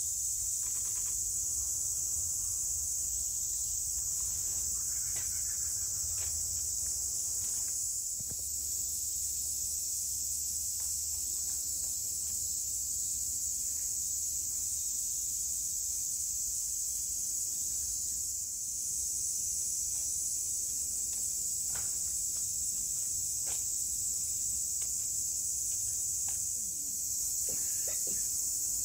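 Steady, continuous high-pitched insect chorus droning without a break, with a few faint clicks and rustles.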